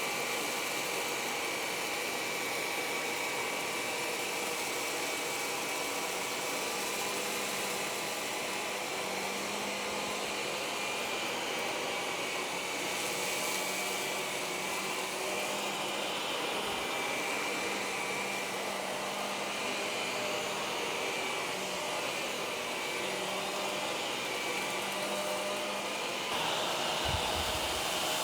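Shark Navigator Lift-Away upright vacuum cleaner (ZU503AMZ) running steadily while vacuuming carpet, with a thin high whine over the motor and airflow noise. It gets a little louder near the end, with a brief low thump.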